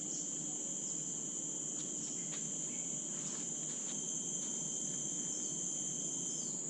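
Steady high-pitched insect chorus, crickets or similar, with a few short faint chirps over it.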